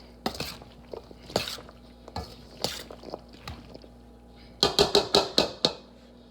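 A utensil clinking against a dish or bowl: a few scattered clinks, then a quick run of about eight clinks about four and a half seconds in.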